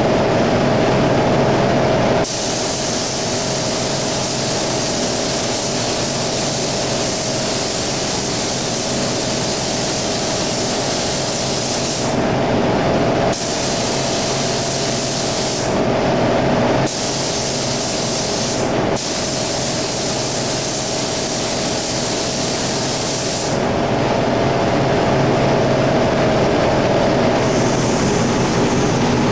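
Gravity-feed paint spray gun hissing in several long passes, the hiss breaking off briefly between passes as the trigger is released, over a steady machine hum.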